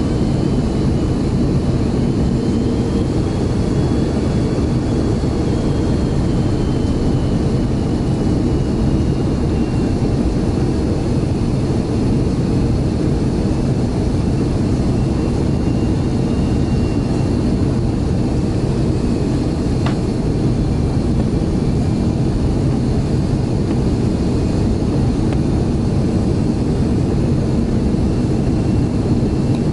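Cabin noise of an Airbus A330-300 airliner landing: a steady low roar of airflow and engines, with a faint whine that drifts slowly in pitch. A single brief click comes about two-thirds of the way through.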